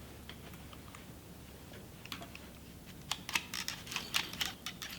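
Quick light clicks and taps of hands handling a Honda engine's recoil starter and its new rope, starting about three seconds in after a quiet stretch.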